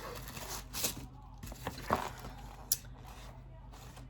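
Paper rustling and crinkling as black tissue paper is unwrapped, with a few sharp crackles.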